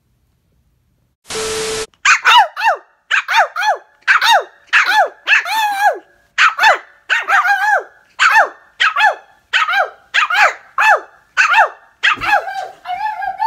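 Small white puppy barking over and over in high yaps, nearly two a second, in a steady run. Just before the barking starts, a short burst of hiss with a steady tone.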